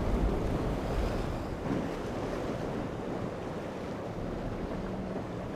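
Wind buffeting the microphone over rough, breaking sea, a steady rushing noise that is strongest in the first second or so. A faint, steady drone, likely from the passing offshore powerboat's engines, comes in near the end.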